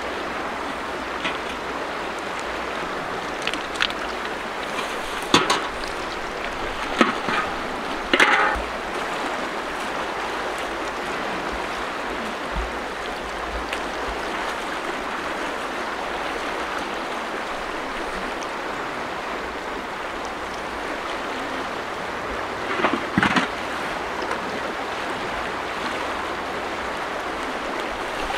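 Fast-flowing river water rushing steadily, with a few short splashes and knocks, several around a quarter of the way in and a cluster about 23 seconds in.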